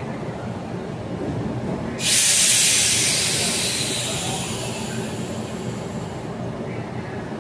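Mexico City Metro train standing at the platform with a steady low rumble of its running equipment; about two seconds in, a sudden loud hiss of released compressed air that fades away over the next few seconds.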